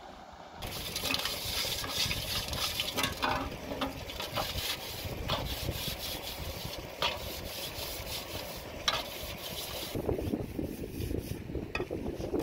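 Aluminium pans and dishes being scrubbed and handled by hand, a rough scraping with light metal clinks and knocks. The scraping stops about ten seconds in.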